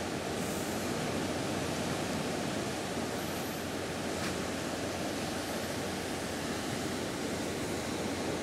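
Steady rushing noise of wind and sea on the deck of a cargo ship under way, with a faint steady high hum beneath it.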